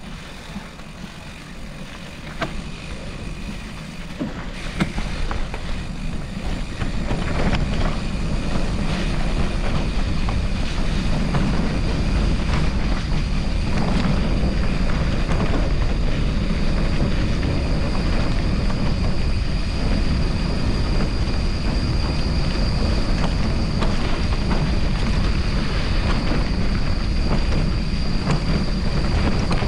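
Riding noise from a gravel bike on an off-road track: wind on the microphone and tyre rumble that build up over the first several seconds as speed rises, then hold steady, with scattered clicks and a thin steady high whine in the background.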